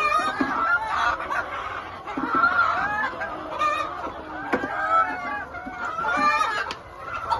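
A flock of chickens clucking and calling over one another continuously.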